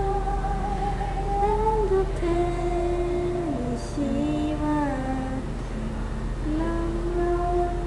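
A student singing a song solo and unaccompanied, in long held notes that slide from one pitch to the next.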